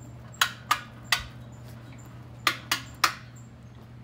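Six sharp clicks or taps in two quick groups of three, the groups about two seconds apart, over a steady low hum.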